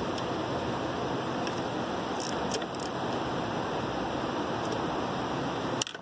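Steady rushing background noise, with a few faint light clicks a little past two seconds in and a sharper click just before it cuts off near the end.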